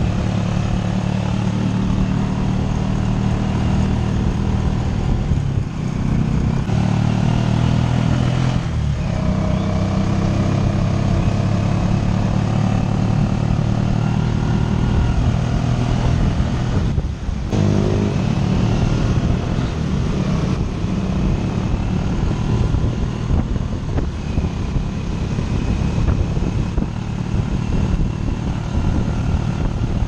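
Motorcycle engine of a mototaxi rickshaw running under way, heard from the passenger seat. Its note drops briefly and picks up again about three times.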